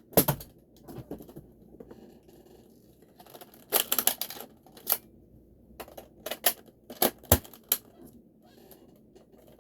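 Hard plastic clicking and clattering as a Nerf Sledgefire blaster and its plastic three-dart shells are handled. There is a quick run of clicks about four seconds in and more scattered clicks a couple of seconds later.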